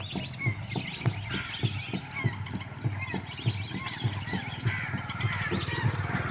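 A flock of birds calling together: many short calls overlap in a continuous chatter.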